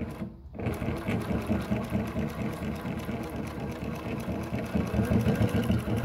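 JUKI LU-1508NS walking-foot industrial lockstitch machine sewing, stitching binding webbing onto thick leather. It starts just over half a second in and runs on at a steady stitching rhythm.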